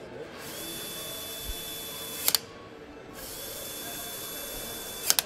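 Cordless power screwdriver driving bolts on an engine's crankshaft assembly: two runs of about two seconds each, a steady high whine, each ending in a couple of sharp clicks.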